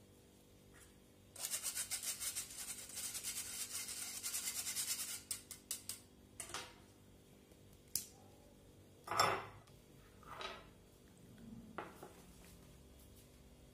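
Fine metal mesh sieve being shaken rapidly and evenly over a glass bowl, with icing sugar rasping through the mesh for about four seconds. This is followed by a few separate knocks and clinks of kitchenware set down on a stone counter; the loudest comes about nine seconds in.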